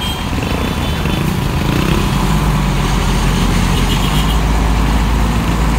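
Diesel engine of a large intercity coach running as the bus starts to pull away, a steady low rumble that grows a little louder about two seconds in.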